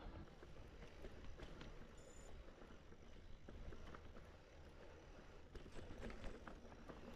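Faint rolling noise of a mountain bike on a rough trail: a low rumble with scattered small clicks and rattles.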